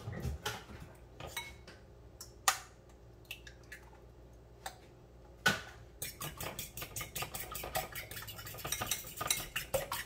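Utensil knocking against a bowl a few separate times, then from about six seconds in eggs being beaten rapidly in a bowl, the utensil clinking against the side several times a second.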